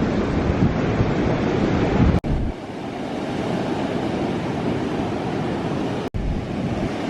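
Strong wind buffeting the microphone with a low rumble, over the steady rush of surf. The rumble is heavier in the first couple of seconds, and the sound drops out for an instant twice.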